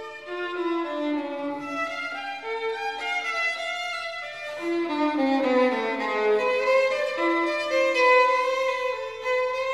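Background music: a bowed violin melody moving note to note, with a sliding passage about halfway through.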